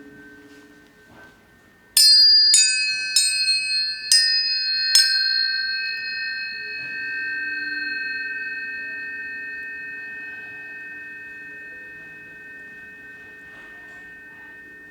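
Tuning forks struck five times in quick succession, each strike a sharp click followed by a clear high ringing tone that sustains and slowly fades, the tones layering into a chord. Two lower steady tones hum underneath, dropping away near the start and coming back midway.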